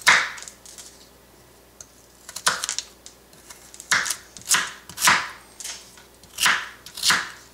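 Knife cutting through beetroot and striking a wooden cutting board: about seven separate chops, the first followed by a pause of about two seconds, the rest coming every half second to a second and a half.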